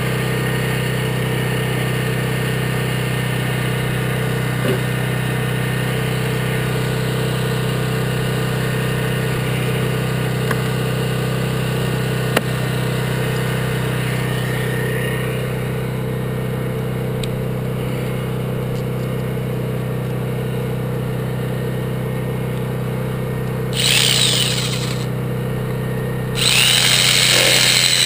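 A steady engine drone runs throughout, with a few light clicks of gear being handled. About 24 seconds in a handheld electric power tool whines up briefly, then starts again a couple of seconds later and keeps running at a high, wavering whine, the loudest sound here.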